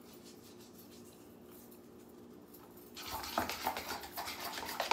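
Kitchen utensil work against a bowl: a quick, irregular run of scraping and clicking that starts about three seconds in and ends on a sharp click, over a faint steady hum.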